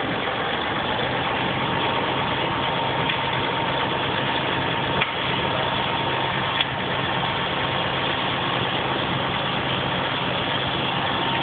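An engine idling steadily with an even low hum. There are two light clicks about five seconds and six and a half seconds in.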